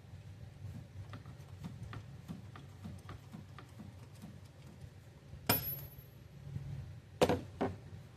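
Light scattered clicks of hand tools being worked, then two sharp metal clanks about five and seven seconds in, the first with a short high ring. These are tools at work on the truck's oil filter.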